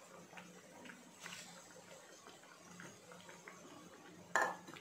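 Dhokla cutlets shallow-frying in oil, with a light crackle of small pops, while a steel slotted spoon turns them in the pan. Near the end the spoon knocks against the pan with a loud clatter.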